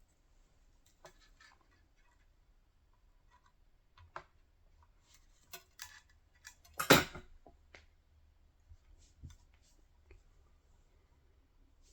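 Scattered small clicks and taps of tools and parts being handled on a workbench, with one louder knock about seven seconds in.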